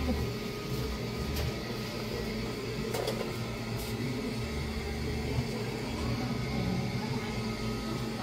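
Steady mechanical hum of a running machine, with low swells coming and going every second or two and a couple of faint clicks about three seconds in.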